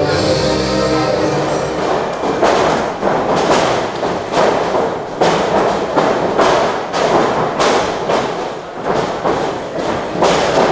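Music stops about two seconds in. Then comes a wrestling brawl: irregular thuds and smacks of blows and bodies landing, a few every second.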